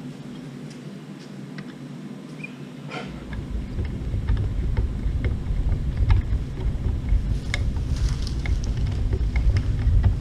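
Light clicks and taps of plastic light-bar parts being handled and fitted. About three seconds in a loud, low rumbling noise sets in and continues under them.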